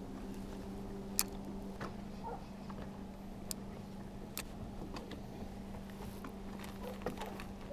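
Steady low hum of a bass boat's bow-mounted electric trolling motor, with a few sharp ticks and clicks, the loudest about a second in.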